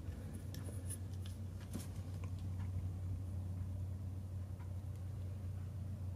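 Faint handling sounds: light clicks and rustling of a plastic GPS puck and its cable being turned over in the hands, mostly in the first couple of seconds, over a steady low hum.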